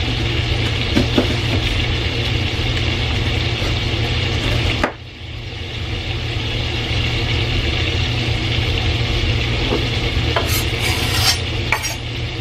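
Sliced sausage sizzling steadily in a cast-iron skillet, with a few light knocks and clatters from kitchen work. The sizzle drops away briefly about five seconds in.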